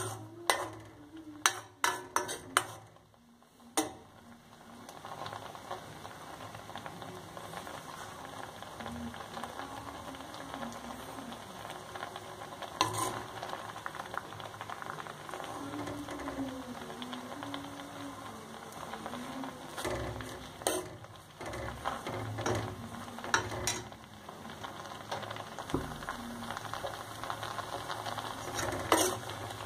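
Metal ladle stirring and scraping dry fish cooked with soda in a metal pan, with sharp clinks of the ladle on the pan, several in the first few seconds and again in the last third. Under it the frothy mixture bubbles and sizzles steadily.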